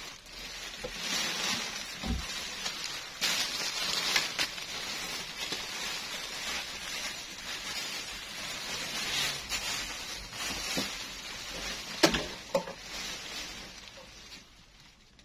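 Rustling and crinkling of an abaya being handled and spread out for display, with a sharp tap about twelve seconds in; the rustling fades near the end.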